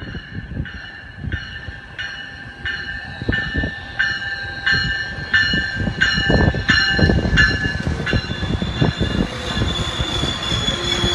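A train bell rings steadily, about three strikes every two seconds, as a Metrolink commuter train rolls in. From about eight seconds in, the rumble of the train and a high wheel squeal grow louder and cover the bell.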